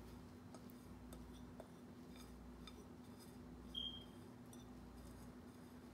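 Near silence: a few faint light ticks as dry fruit is scraped by hand out of a glass bowl into a pan, over a steady low hum. About four seconds in comes one brief high squeak.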